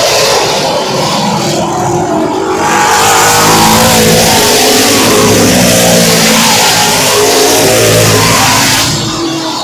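Late Model Sportsman stock cars racing on the oval, engines at full throttle, their pitch rising and falling as the cars pass close by. Loudest through the middle, dropping off near the end as the field moves away.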